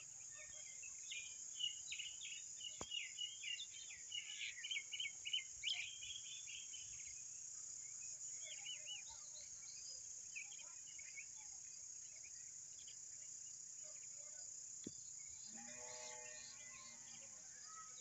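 Quick runs of high bird chirps during the first several seconds, with a few more later, over a steady high insect drone, and a longer, lower call near the end.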